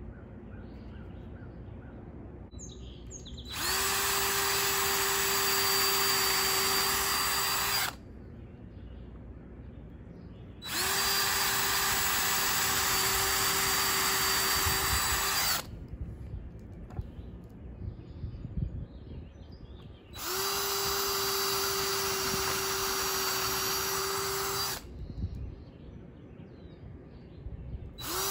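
DeWalt cordless drill driving screws into weathered wooden boards. It runs in three long pulls of four to five seconds each, speeding up briefly and then holding a steady whine before stopping sharply, and a fourth pull starts at the very end. Small knocks and handling sounds come between the pulls.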